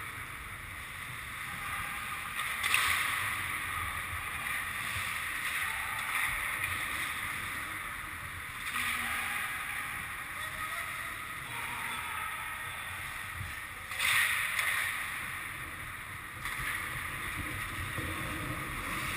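Ice hockey rink sound: skate blades scraping and swishing on the ice over a steady low rumble, with two sudden louder scrapes about three seconds in and again about fourteen seconds in.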